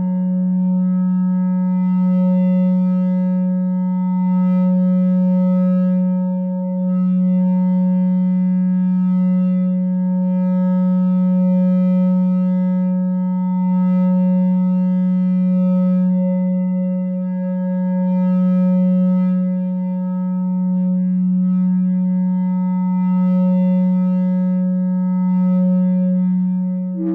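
No-input mixer feedback drone: a loud, steady low hum with a ladder of fainter steady overtones above it, swelling and easing gently every couple of seconds.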